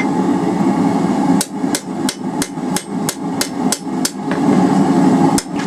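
Cross-peen hammer striking hot round steel bar on an anvil, about three blows a second in a run of roughly nine, then one more blow near the end, beveling the edge of the bent end. A steady hum runs underneath.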